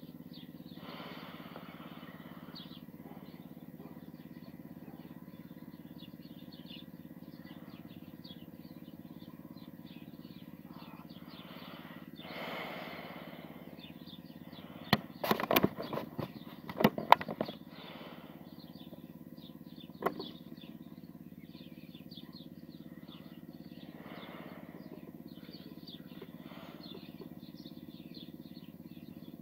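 Steady low hum with frequent short high chirps and a few soft breathy whooshes, broken about halfway through by a cluster of sharp clicks and rustles, the loudest sound here, from a cardboard cigarette pack handled close to the microphone, with one more click a few seconds later.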